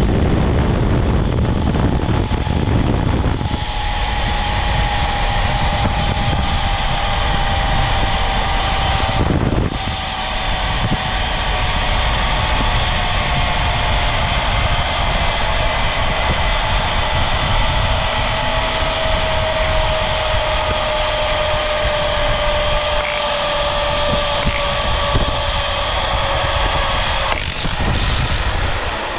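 Zipline trolley running down its steel cable at high speed, with wind rushing over the microphone. A steady whine from the trolley wheels comes in a few seconds in and slowly falls in pitch as the ride slows, ending in a sharp clunk near the end as the trolley reaches the bottom station.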